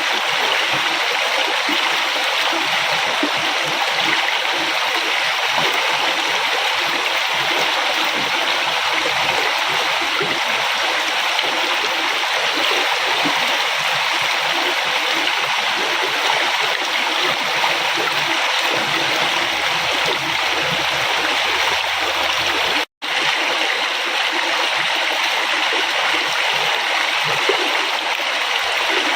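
A river flowing steadily over rocks, an even rushing with gurgling and splashing. About 23 seconds in it cuts out for an instant and resumes.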